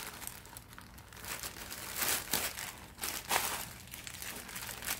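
Packaging crinkling in short, irregular bursts as it is handled, with the gift shirt still inside.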